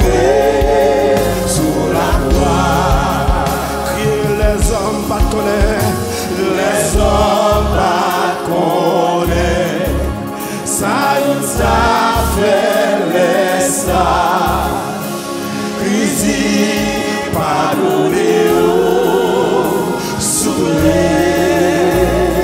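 A gospel worship team sings a hymn in Haitian Creole, a lead voice with backing singers. Instruments play underneath, with a bass line moving below the voices.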